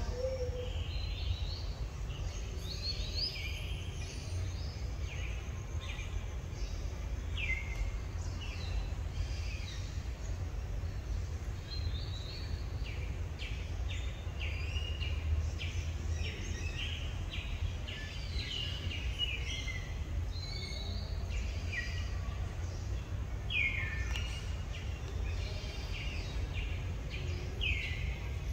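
Birds calling in surrounding trees: many short high chirps and quick downward-sliding calls, scattered across the whole stretch, over a steady low rumble.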